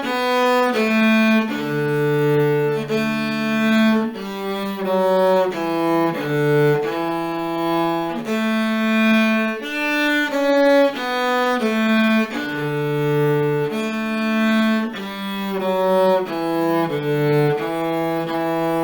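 Cello bowing a simple beginner melody in steady notes of about one second each, with shorter notes between. There is a second lower line of notes under it, an accompanying part.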